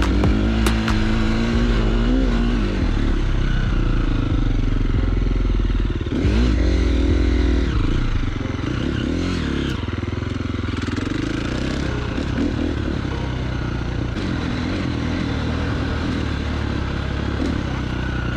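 KTM enduro motorcycle's engine under way, the revs rising and falling sharply through the first several seconds, then settling to a steadier, slightly quieter run.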